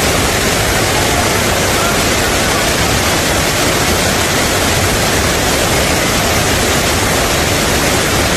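Fukuroda Falls, a broad, tiered waterfall, pouring close by: a loud, steady, unbroken rush of falling water.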